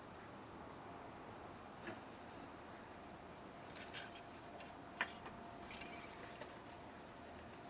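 Several faint, sharp clicks and taps, scattered irregularly over a quiet background, the sharpest about five seconds in. A faint steady tone runs through the middle.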